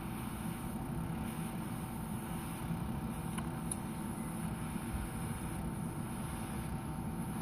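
A premature newborn making soft sucking noises over a steady mechanical hum and hiss, with two faint clicks near the middle.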